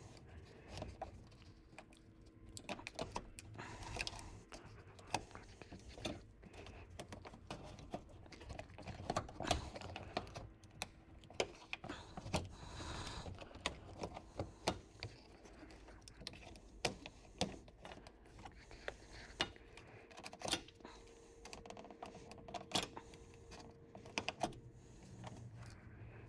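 Razor-blade knife cutting through a car's plastic underbody cover: irregular small clicks, snaps and scrapes as the blade works through the plastic, over a faint steady hum.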